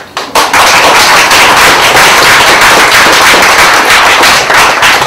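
Audience applauding, a dense, loud clapping that starts about half a second in and tails off near the end.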